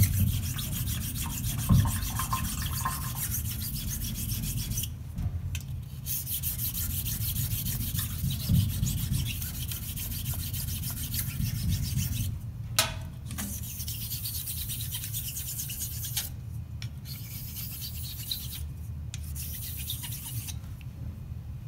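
A Thiers Issard straight razor honed on a wet 1200-grit Atoma diamond plate: rapid back-and-forth rubbing strokes, smoothing out the scratch pattern left by the 400 plate. The strokes pause briefly a few times and stop a little before the end.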